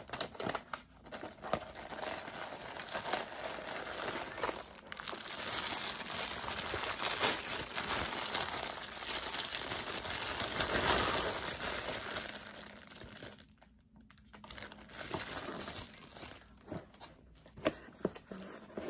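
Tissue paper rustling and a clear plastic bag crinkling as a slide sandal is unwrapped from its shoebox. The crinkling is loudest about ten seconds in, then dies down to a few light rustles and taps.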